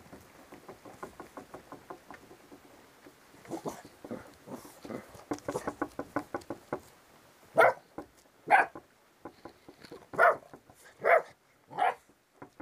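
8-week-old Rottweiler puppies play-fighting: a quick run of small scuffling sounds as they wrestle, then five short puppy barks, roughly a second apart, in the second half.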